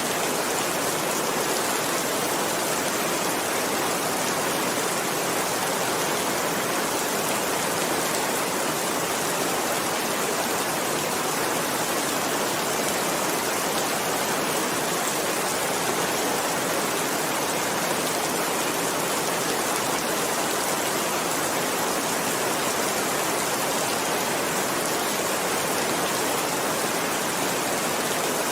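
Steady heavy rain, an even unbroken hiss with no distinct drops, crackles or thunder standing out.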